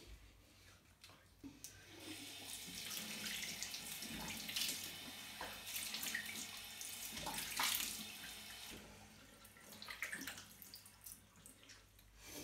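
Bathroom tap running into a sink, with water splashing as a face is rinsed with cupped hands. The running water starts about two seconds in and eases off near nine seconds. A few separate splashes follow.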